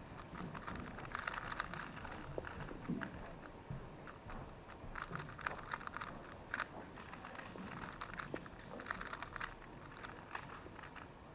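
Plastic speedcube being turned quickly, a faint, irregular run of quick clicks and crackles with denser flurries.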